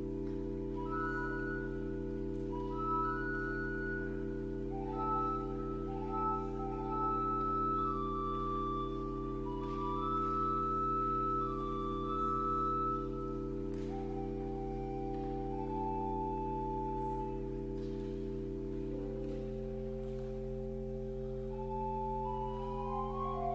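Pipe organ playing: a low chord held steadily underneath while short high notes flit above it, the composer's imaginary birds. The held chord changes about three quarters of the way through, and a quick rising run of notes comes near the end.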